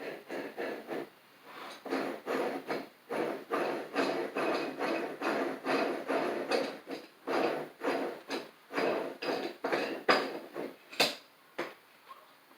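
Quick repeated metal strokes of a hand tool working on a cast-iron bench vise, about three a second, with one sharper knock near the end before the strokes stop.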